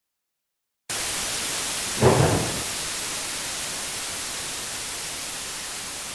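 TV static hiss (white noise) that switches on abruptly about a second in and holds steady, with a brief louder crackle about a second after it starts.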